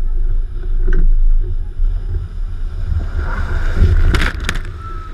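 Wind rumble on the microphone of a motorboat running fast over open water. About three and a half seconds in, a wave bursts over the bow and water crashes and sprays onto the camera in two heavy splashes.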